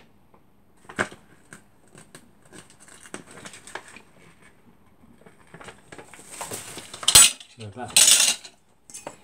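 Metal router accessories and tools being handled on a workbench: scattered clinks and knocks, with a paper booklet rustling and the two loudest knocks near the end.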